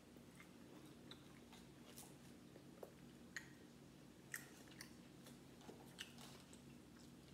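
Faint chewing and the crackle of crab leg shells being picked apart and cracked by hand, with a few sharper snaps scattered through. A low steady hum runs underneath.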